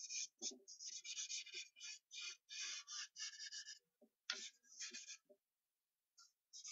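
Charcoal scraping across newsprint in a run of quick, scratchy drawing strokes, pausing for about a second near the end.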